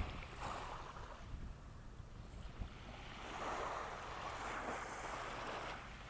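Small waves washing up onto a sandy beach. One wash swells about three seconds in and eases off near the end, with a low rumble of wind on the microphone underneath.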